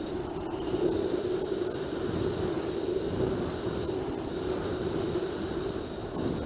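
Steady wind rushing over the camera microphone in paraglider flight, a continuous noisy rush with a low hum and hiss.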